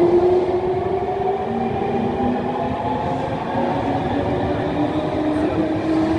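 Nankai 2000-series electric train pulling out and gathering speed. Its traction motors give a whine of several tones that slowly climb in pitch, over a steady rumble of wheels on rail.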